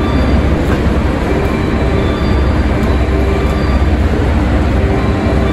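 A 381 series limited express electric train approaching along the platform track, a steady, loud rail rumble with faint tones over it.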